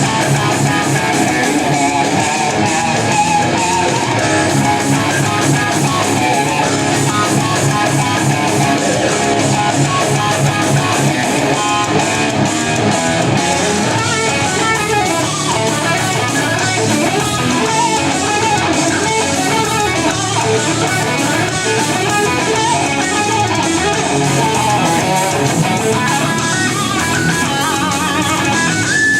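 Electric guitar playing a continuous passage of notes and chords.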